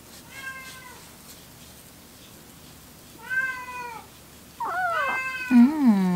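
Young kitten meowing repeatedly while being wiped down. There is a faint meow at the start and a louder one about three seconds in, then loud, overlapping cries from about four and a half seconds, showing it dislikes the handling. A lower voice joins in near the end.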